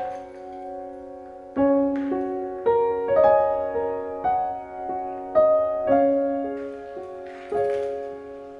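Slow solo piano music: single notes and soft chords struck one after another, each left to ring and fade.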